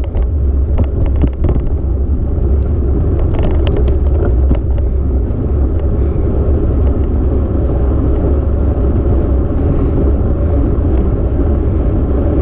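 Wind buffeting the microphone of a moving camera, a steady deep rumble, with tyre noise on rough, cracked asphalt. A few light clicks and knocks come in the first four or five seconds.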